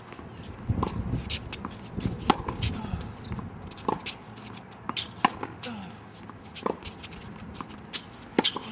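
Tennis balls being struck by rackets and bouncing on the court: sharp, irregular knocks of varying loudness, the loudest about two seconds in, over low background voices.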